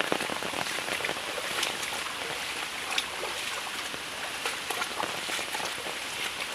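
Rain falling, with frequent irregular sharp drop hits close to the microphone over a steady hiss.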